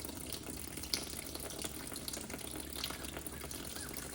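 Water running steadily in a stream out of a dirt bike's coolant drain hole into a bucket as the cooling system is flushed with tap water.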